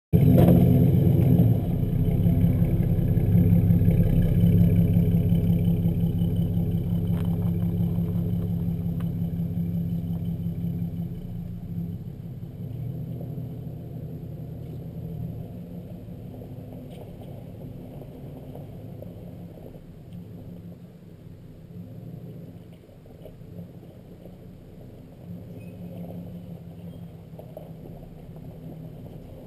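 Pickup truck engine running steadily, slowly getting quieter over the first half and then holding at a lower level.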